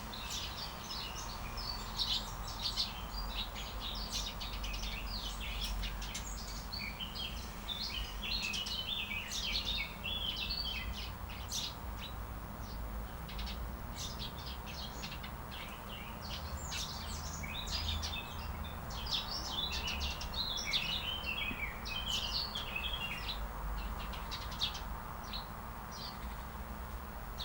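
Songbirds chirping and twittering in a dense, continuous chorus of short high calls, over a steady low rumble.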